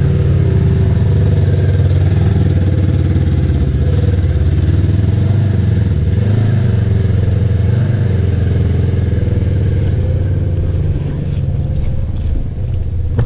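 Side-by-side UTV engine running steadily under load as the machine keeps driving forward, easing off a little near the end.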